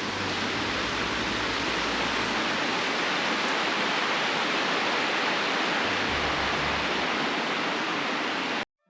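River water rushing steadily past an open stretch of a partly frozen river. It cuts off abruptly just before the end.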